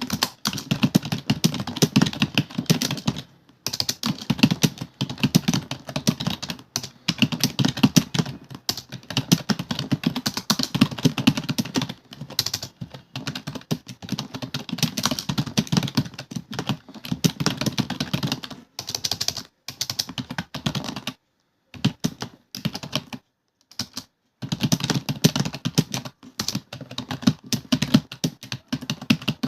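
Fast typing on a computer keyboard: a dense, continuous stream of key clicks, broken by two brief pauses in the last third.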